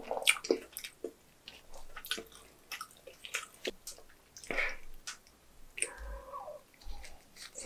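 Wet squishing and smacking of seasoned napa cabbage kimchi being pulled apart with gloved hands and bitten into, with close-up chewing.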